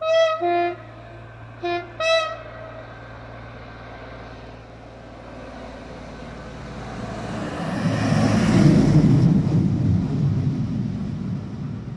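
Train horn sounding four short blasts, then the train's rumble building as it approaches, peaking as it passes close by and fading away.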